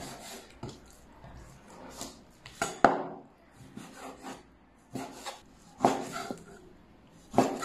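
Chinese cleaver slicing raw chicken breast into strips on a wooden cutting board. The blade knocks on the board about ten times at irregular intervals, loudest about three seconds in.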